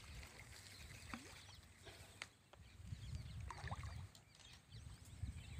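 Quiet outdoor ambience: a faint low rumble with a few faint, short high chirps and a light click about two seconds in.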